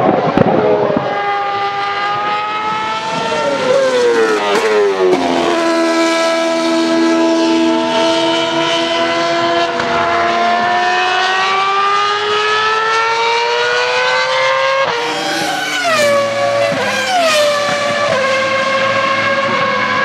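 Ferrari Formula 1 car engine running at very high revs. The pitch falls steeply about a quarter of the way in, then climbs steadily for several seconds as the car accelerates. Near the end come a few sharp drops in pitch with quick blips in between: downshifts under braking.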